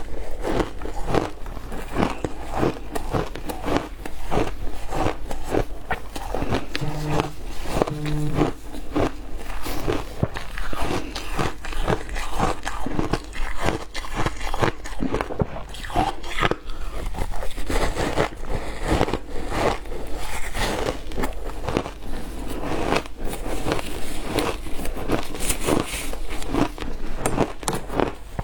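Ice being bitten and crunched between the teeth close to the microphone, a dense run of sharp crunches several times a second.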